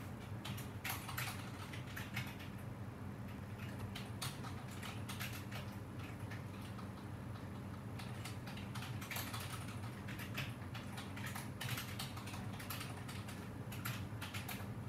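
Irregular light clicking and tapping, in quick clusters with short gaps, over a steady low hum.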